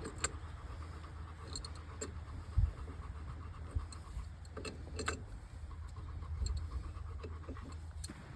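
Scattered light clicks and knocks of work on a tractor's steering ram over a low steady rumble, with one louder thump about two and a half seconds in.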